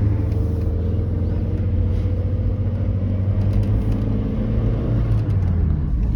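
Truck engine running steadily at a low, even pitch.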